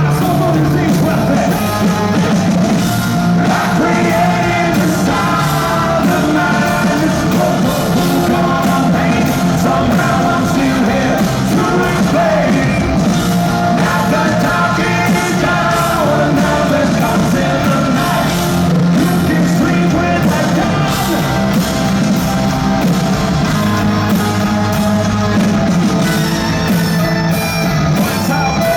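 Live rock band playing loud, with shouted, yelled singing over the music.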